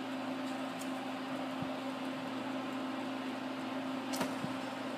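Steady hum of a shop fan with one low tone. Near the end come a couple of faint knocks: a hand tapping the plywood sanding disc on the motor shaft to true its wobble.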